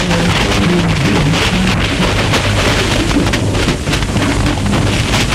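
Film score music, muffled under the steady hiss and crackle of an old 1930s optical film soundtrack.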